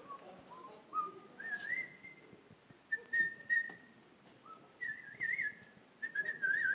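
A man whistling a tune through his lips in short phrases. The pitch climbs over the first couple of seconds, and the last phrases break into quick warbling trills. A few faint knocks sound along with it.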